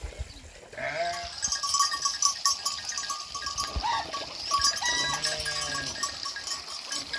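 A flock of sheep and goats bleating in short wavering calls, over a dense clinking and jingling of many small bells that starts about a second in.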